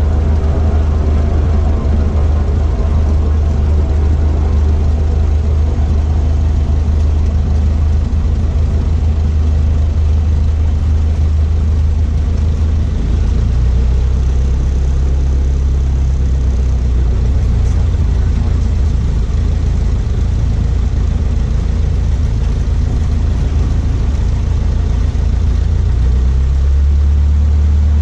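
Cessna 152's four-cylinder Lycoming engine and propeller running steadily at low taxi power, heard inside the cabin. The engine note shifts about halfway through and again near the end.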